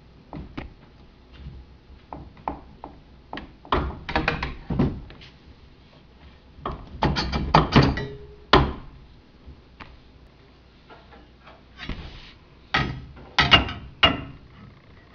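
Knocks, clunks and clicks of elliptical frame parts being worked and slid into place, scattered taps between three denser bursts of knocking.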